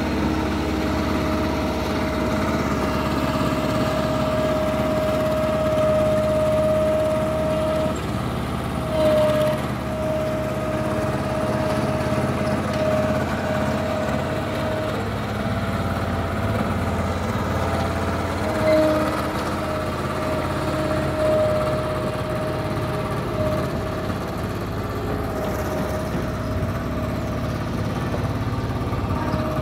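Small ride-on vibratory roller's engine running steadily while compacting gravel. A constant whine holds over the engine, with a couple of brief louder swells.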